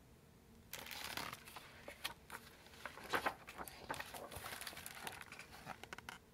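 Picture-book pages being handled and turned: paper rustling and crinkling with sharp little clicks, starting about a second in and stopping abruptly just before the end.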